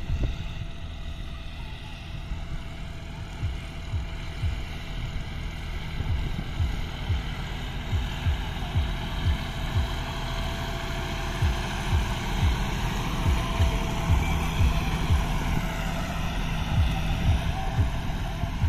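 John Deere tractor's diesel engine running steadily at about 1200 rpm in second high gear while pulling a disc harrow, getting louder as it comes closer, with frequent low thumps.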